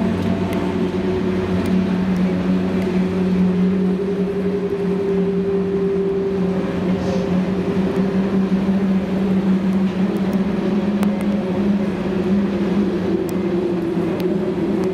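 A steady engine drone with a low, even hum that holds its pitch.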